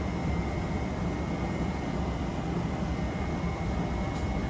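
Jōmō Electric Railway 03 series electric train heard from inside the car, a steady low rumble of running noise with a faint steady high tone above it.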